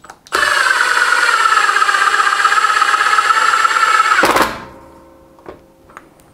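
Milwaukee M18 FID2 cordless impact driver, on its lowest power setting, driving a long wood screw into a block of wood for about four seconds. It stops abruptly with a short falling whine as the motor spins down, followed by a few faint clicks.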